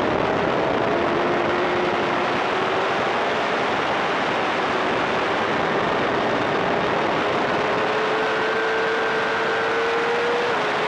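Racing motorcycle at speed heard from its onboard camera: heavy wind rush over the microphone, with the engine's note climbing slowly under throttle and dropping slightly near the end.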